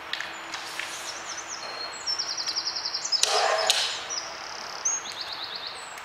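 Hobart A200 mixer's gear-change lever being worked by hand, with a couple of metallic clunks about three seconds in. A bird sings rapid high trills in the background.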